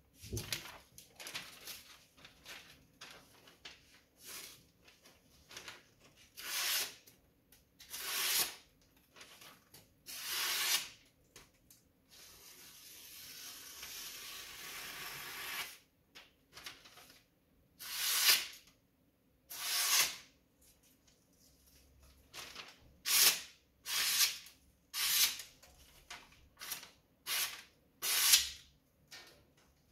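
Tojiro VG10 knife blade drawn across an Arashiyama #6000 finishing whetstone in about a dozen separate strokes, coming faster toward the end, with a longer steady hiss that swells for about four seconds in the middle.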